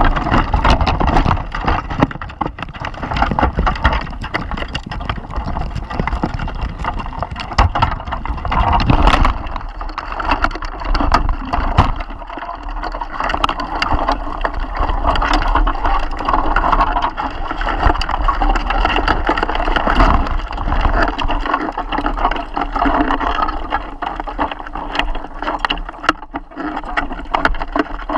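Crabs moving inside a wire crab pot, their legs and shells clicking, knocking and scraping against the pot and the camera, over a steady low rumble.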